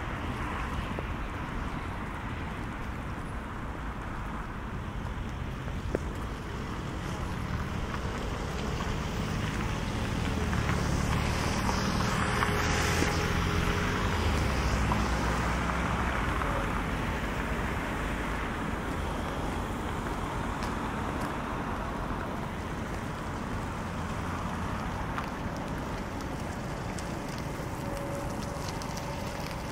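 Outdoor traffic ambience: a steady low rumble, with a vehicle passing whose noise swells over several seconds near the middle and then fades away. A single sharp click comes about six seconds in.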